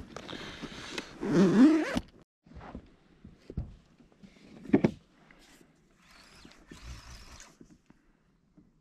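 Zipper of a soft insulated fish bag being drawn along for about two seconds. Then scattered light knocks and rustles of gear on a plastic kayak, with one sharper knock midway.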